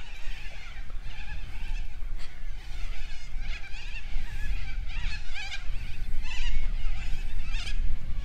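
Wind buffeting the microphone in a steady low rumble, with short wavering bird calls recurring in the background every second or so.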